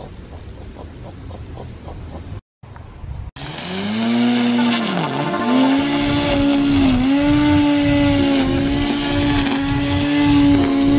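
Hunter electric string trimmer's motor whining steadily as it cuts grass, starting about three seconds in. Its pitch dips sharply once, about five seconds in, and slightly twice more.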